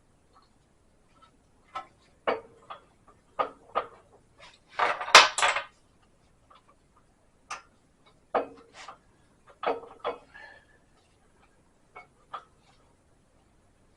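Metal tools and parts clinking and knocking inside a GM 8.5 rear axle's Gov-Lock locking differential as it is taken apart: scattered single clinks, with a rattling cluster about five seconds in that is the loudest.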